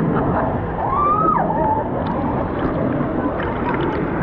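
Rushing, sloshing water of a wave-and-rapids river around a floating rider, with faint voices of other people. About a second in, one high voice calls out, rising and then falling.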